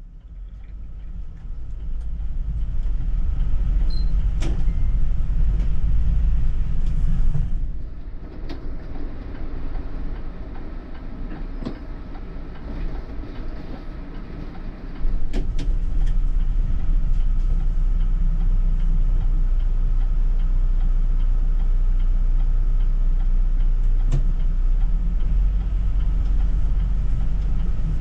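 City bus running, heard from inside: a low engine rumble with road noise that builds over the first few seconds. It drops back after about seven seconds and comes up again about halfway through, with a few sharp knocks.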